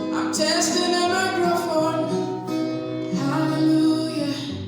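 Music with singing over a plucked, guitar-like accompaniment, with held, sustained notes.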